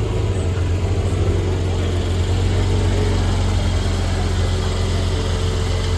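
Car engine idling steadily, a low even hum with no revving.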